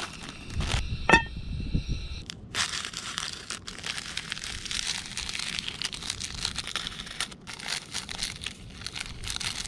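Plastic instant-noodle packet and seasoning sachets crinkling and rustling in the hands as they are torn open and shaken out over a camping pot. A short rising squeak stands out about a second in.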